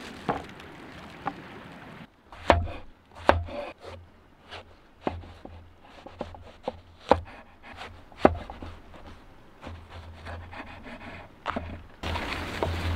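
Knife cutting food on a wooden cutting board: irregular knocks and taps, a few of them much louder chops.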